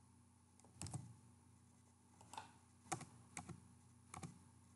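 A few faint keystrokes on a computer keyboard, about half a dozen short clicks at irregular intervals, as text on a slide is edited.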